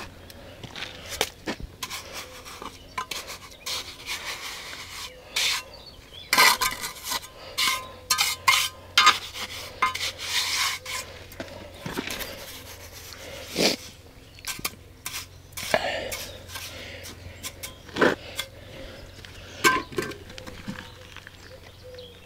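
Steel mason's trowel scraping and spreading mortar and tapping on concrete blocks: an irregular run of scrapes and sharp clicks and knocks.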